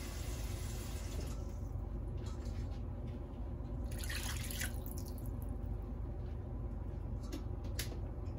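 Water poured from a bowl into a wok of beef in seasoning liquid, splashing into the broth. The pour stops about a second in, a shorter splash comes around four seconds in, and a couple of drips follow near the end.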